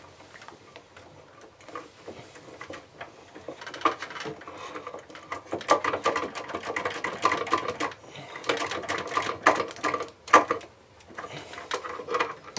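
Runs of rapid small clicks from a screwdriver working the terminal screws of an RV water heater's electric heating element, heaviest in the middle of the stretch.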